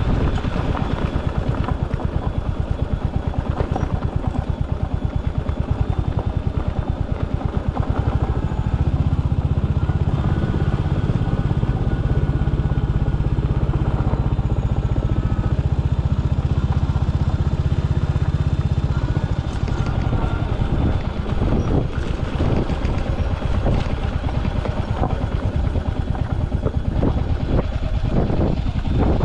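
Royal Enfield Hunter 350's single-cylinder engine running as the motorcycle is ridden, with a steady, even beat that is strongest from about a third of the way in until about two thirds through. After that the engine note turns less even, with scattered knocks toward the end.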